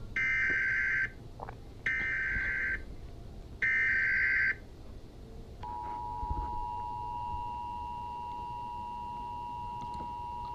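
Emergency Alert System SAME header: three data-tone bursts of about one second each, a second apart, then about five and a half seconds in the steady two-tone EAS attention signal starts and holds.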